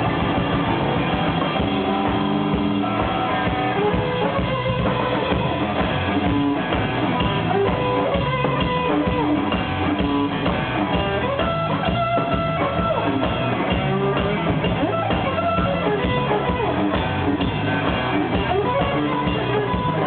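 Live rock band playing an instrumental passage: electric guitar notes over bass guitar and a drum kit keeping a steady beat.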